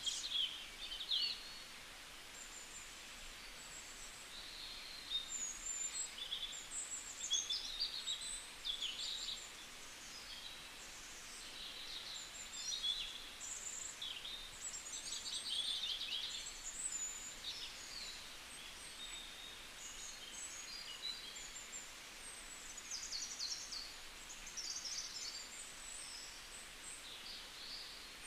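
Birds chirping: many short, high calls and quick trills, some overlapping, over a faint steady hiss.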